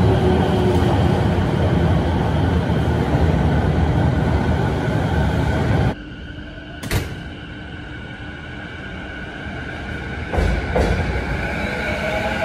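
Tokyo Waterfront Railway (Rinkai Line) train running past through an underground station, loud wheel and motor noise that drops off abruptly about six seconds in, followed a second later by a single sharp click. From about ten seconds in, a JR Saikyo Line train is moving on the far track, with a motor whine rising in pitch near the end.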